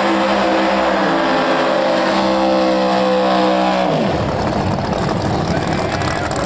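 Drag-race car engines held at a steady high rev on the start line. About four seconds in, the pitch drops and the sound breaks into a loud broad engine noise as the cars launch and race away.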